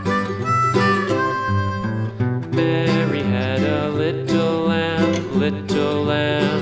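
Country-style music: a held harmonica-like melody, then plucked guitar picking up from about two seconds in.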